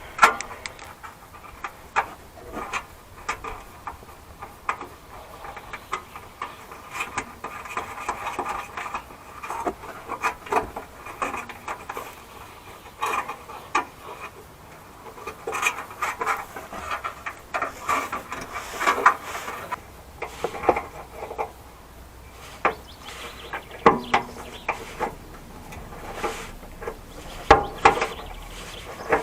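Hand tools and small metal parts working under the car: irregular metallic clicks, knocks and scraping, as screws, nuts and a washer are fitted with pliers to stop an underbody rattle.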